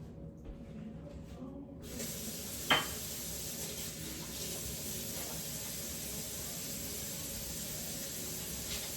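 A steady rushing hiss that starts abruptly about two seconds in and cuts off just before the end, with one sharp click shortly after it begins.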